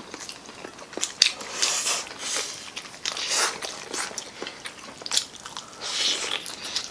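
Close-up eating sounds from several people: chewing, biting and slurping pancit canton noodles and crisp fried chicken, heard as a string of short, irregular wet bursts and clicks.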